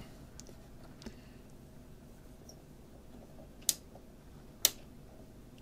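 Knobs and switches of a National SG-725 portable radio-record player being worked: a few light clicks, then two sharp clicks about a second apart near the end, over a faint steady hiss. The radio is picking up nothing on medium wave.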